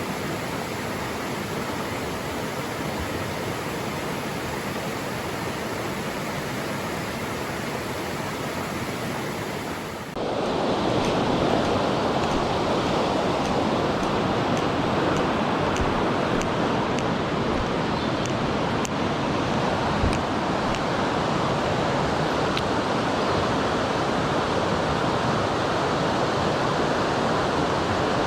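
Rushing water of a mountain stream, a steady even noise that jumps louder and fuller about ten seconds in.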